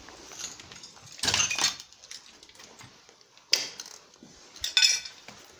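Clinking and clattering of hard objects, in three short loud bursts.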